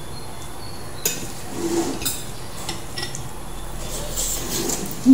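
Spoon and fork clinking and scraping on ceramic plates and bowls while people eat, a few light clicks spread out, with a short low thump at the very end.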